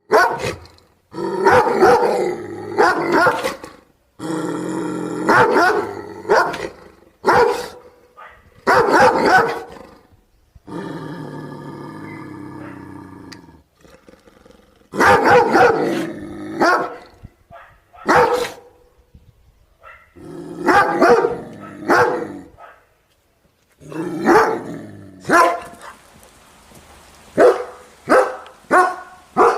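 Dogs barking in a string of separate bursts, with a longer stretch of growling between barks, and a run of quick barks at about one a second near the end.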